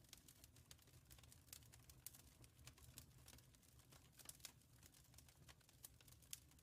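Wood fire crackling faintly in a fireplace: irregular small pops and snaps over a low, steady rumble of the flames.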